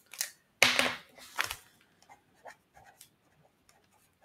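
Handwriting on paper: a couple of louder scuffs in the first second and a half, then faint, short scratching strokes as figures are written out.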